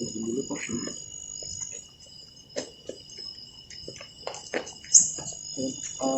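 Crickets calling steadily, several unbroken high trills at fixed pitches, with scattered short clicks and knocks over them.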